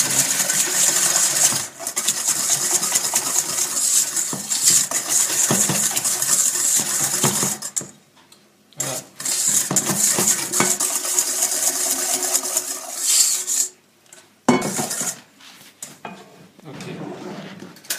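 Wire whisk beating egg yolks and sugar in a stainless steel bowl until pale, a fast rattle of metal on metal. The whisking stops briefly about eight and fourteen seconds in, and is softer over the last couple of seconds.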